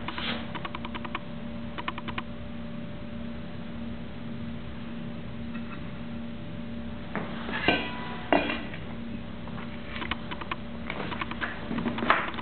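Stainless steel parts clinking as they are handled: two sharper metal knocks with a brief ring a little before and after 8 seconds in, and several quick runs of light clicks and rattles. A steady low hum runs underneath.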